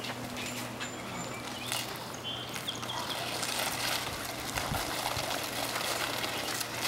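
Rustling and scuffing of a large cardboard prop being handled and turned, denser after the first few seconds, with a few faint bird chirps over a steady outdoor background hum.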